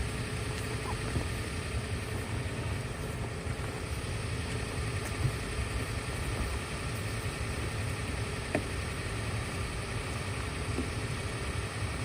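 Truck engine idling steadily, with a few faint clicks over it.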